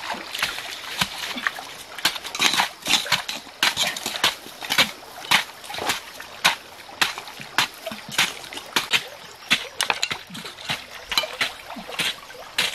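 Wet mud and shallow stream water splashing and slapping as hands scoop and throw it, many quick irregular splashes a second.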